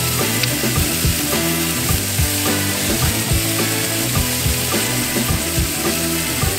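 Seasoned raw chicken wings sizzling on a hot Blackstone flat-top griddle, a steady frying hiss, over background music.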